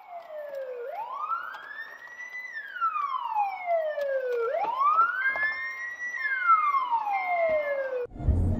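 Police car siren wailing, its pitch rising and falling slowly, twice over. It cuts off suddenly near the end.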